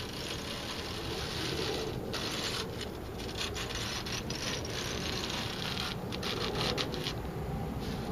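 Hands rubbing and scraping along the deteriorated aluminum fins of an ADP evaporator coil, a dry crackling rasp as the fins crumble and flake off. The fins are disintegrating, which is why the coil was not cooling well.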